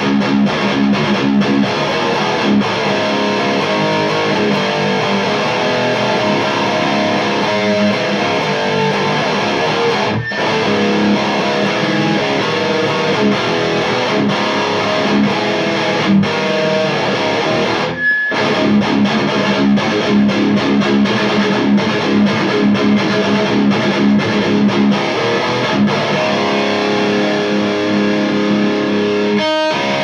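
Heavily distorted electric guitar riffing in a thrash-metal style: a homemade Explorer-type guitar with EMG pickups, through an MXR 10-band EQ into a Marshall JVM410H head and 1960A cabinet with Vintage 30 speakers. The playing is continuous apart from two very short breaks, about ten and eighteen seconds in.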